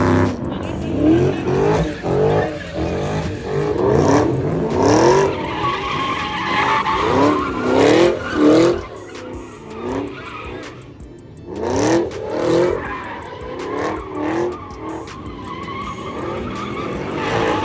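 A car engine revving hard again and again, each rev a rising whine, with tires squealing as the car slides.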